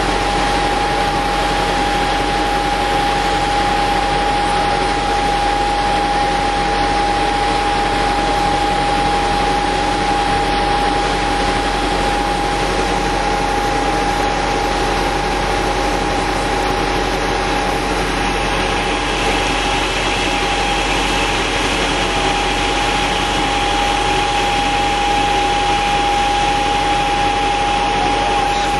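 Fire engine running its engine-driven pump to feed the hoses: a constant engine drone with a steady high whine.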